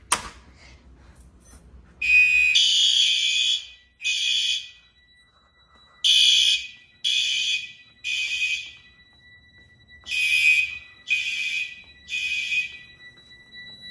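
A Fire-Lite BG-12 pull station snaps as it is pulled. About two seconds later fire alarm horns start sounding: a longer blast, then groups of three short blasts about a second apart with pauses between, the temporal-three evacuation pattern. A faint steady high beep runs underneath.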